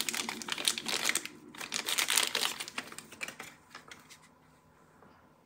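Thin plastic bag crinkling and crackling as a camcorder battery pack is unwrapped from it by hand, a quick run of small crackles that dies away in the last second or two.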